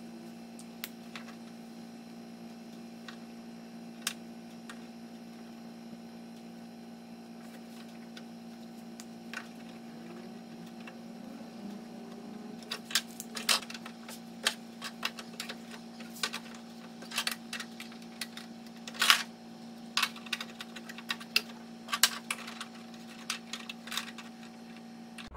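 Sharp, irregular clicks and snaps, a few scattered at first and then several a second in the second half, over a steady low electrical hum.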